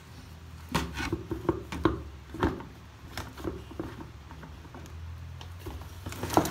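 Light plastic clicks and knocks of a Tornado Mop 360 spin mop head being pressed and seated into the spinner basket of its plastic bucket, a few separate knocks about every half second, dying away near the end.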